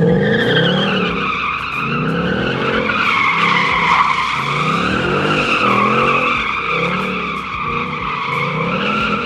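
Ford Mustang sliding on asphalt with its tyres squealing continuously, the squeal wavering in pitch, over the engine revving up and down about once a second.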